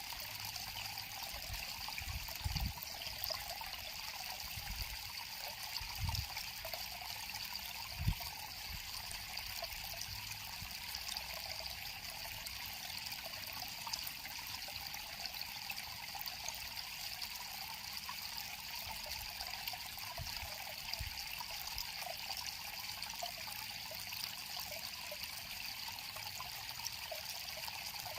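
River water flowing and trickling steadily. A few brief low thumps come through it, the sharpest about eight seconds in.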